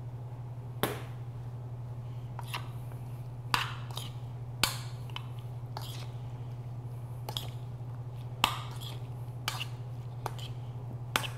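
Scattered sharp clicks and taps against a ceramic bowl as potato salad is tossed by hand and then stirred with a spoon, over a steady low hum.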